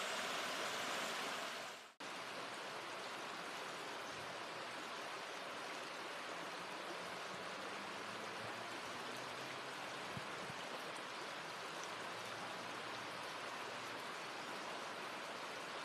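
Shallow river running over rocks, a steady rush of water. It breaks off sharply about two seconds in and resumes a little quieter.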